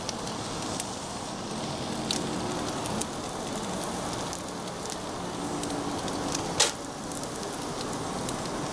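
Butter and fat sizzling on a hot Blackstone flat-top griddle as raw beef patties are laid down, a steady crackling frying noise with scattered pops. A sharp click about six and a half seconds in.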